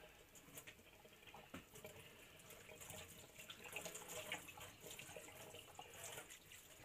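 Kitchen faucet running faintly into a stainless steel sink, the stream splashing over a skinned rabbit carcass being rinsed clean by hand, with small irregular splashes and drips.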